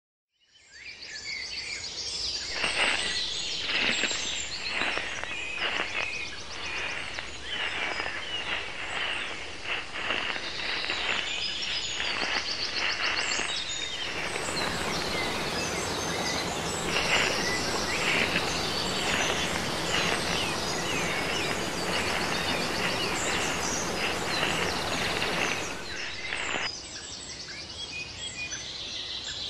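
Tropical forest ambience fading in: birds chirping and trilling over a dense insect hum, with a thicker hiss through the middle stretch.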